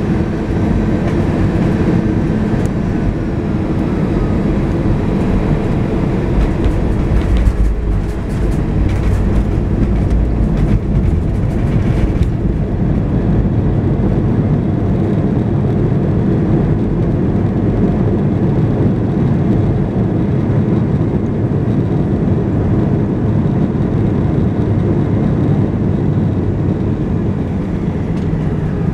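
Airbus A320 touching down and rolling out, heard from inside the cabin over the wing: a loud, steady rumble of engines and landing gear, with a cluster of thumps and rattles from about 7 to 12 seconds in as the wheels hit the runway, bouncing on a shaky touchdown.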